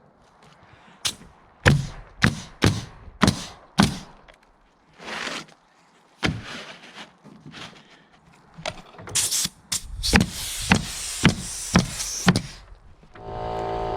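Roofing nails driven into asphalt shingles: runs of sharp knocks about half a second apart, with short scraping hisses between the runs.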